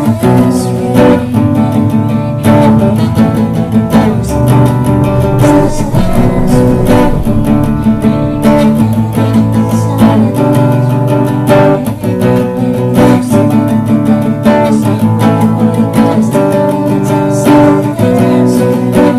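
Acoustic guitar strummed in a steady instrumental passage, with chords ringing between regular strokes.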